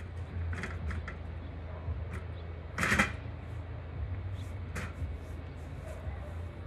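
Folded Weber Traveler portable gas grill being wheeled along on its two wheels: a low steady rumble with light rattles, and one sharp clatter about three seconds in and a smaller click near five seconds.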